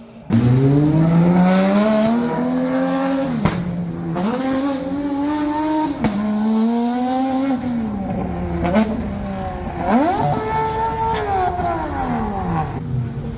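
Naturally aspirated supercar engine accelerating hard through the gears: its pitch climbs and drops back at each upshift, about every two to three seconds. About ten seconds in it revs up sharply once more, then the pitch falls away steadily.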